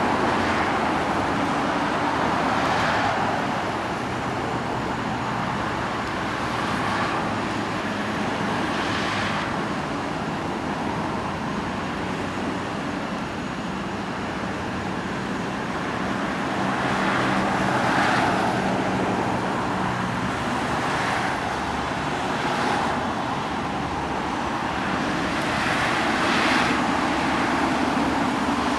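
Road traffic noise: a steady roar of engines and tyres, with vehicles passing and swelling up every few seconds.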